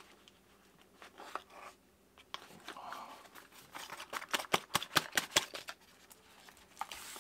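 Packaging handled and unwrapped by hand: light paper rustling, then a quick run of sharp crackles and snaps between about four and five and a half seconds in.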